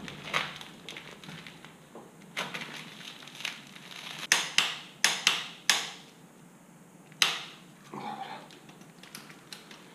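Sharp metallic clicks and clacks of a socket wrench and other hand tools being handled and fitted, with a quick run of five loud clicks about four to six seconds in.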